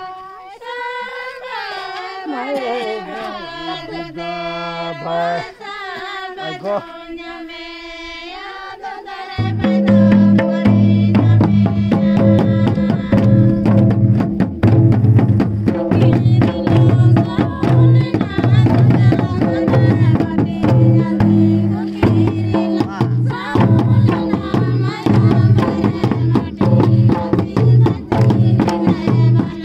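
A group of women singing a Santhali Sohrai folk song unaccompanied. About nine seconds in, hand-beaten barrel drums, a stick-beaten drum and small brass cymbals come in loud with a steady beat, and the singing goes on over them.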